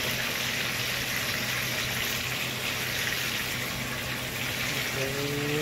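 Two whole red snappers frying in hot oil in a nonstick pan, giving a steady sizzle throughout.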